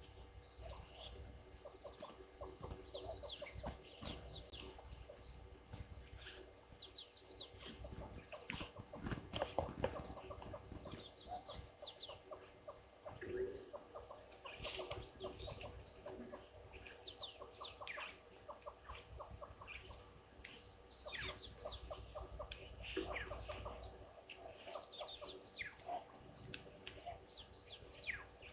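Many wild birds calling at once in short, quick falling notes, over a steady high-pitched insect drone.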